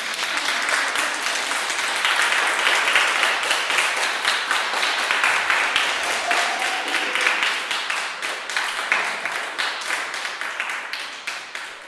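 Audience applauding: many hands clapping in a dense patter that starts abruptly and tails off near the end.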